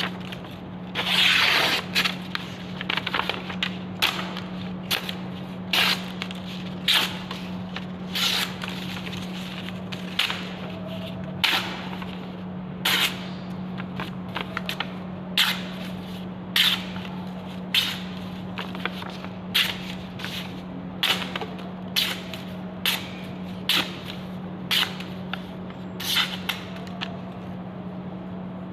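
Knife made from saw-blade steel making repeated quick slicing strokes, about one a second, each a short sharp scrape. A steady low hum runs underneath.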